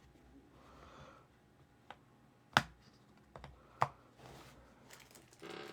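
Small model-kit parts being handled and fitted: a handful of sharp clicks and taps as the seat rails are set against the interior floor piece, with faint rustling between them.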